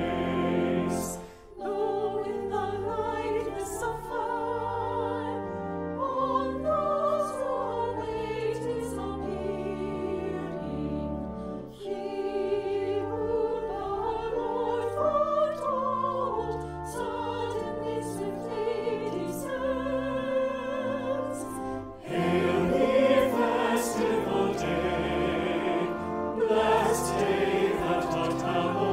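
Church choir singing a hymn verse in phrases, with short breaks about a second and a half in, near the middle, and around 22 seconds. After the last break the singing comes back fuller and louder.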